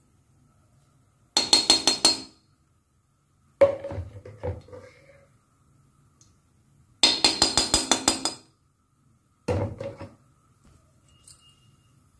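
A metal spoon clinking and scraping against an iron kadhai while ghee is spooned into it: two quick runs of clinks, about a second each, and a couple of single knocks in between.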